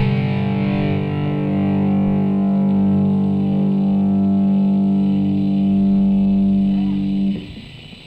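Final chord of an instrumental piece for six-string electric basses and synthesizer keyboards, one bass through guitar-style distortion effects, held steady for about seven seconds and then dying away quickly near the end.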